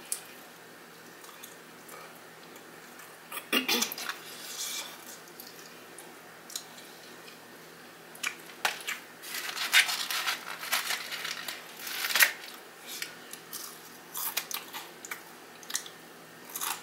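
Close-miked eating of fried chicken: crackly crunching and chewing of the breaded skin and meat. A few crackles come about three and a half seconds in, then a dense run of crunching from about eight seconds on.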